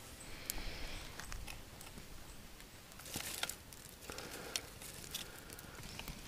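Dry twigs and lichen tinder crackling and snapping as a small campfire is lit and fed by hand, with scattered clicks and a cluster of snaps about three seconds in.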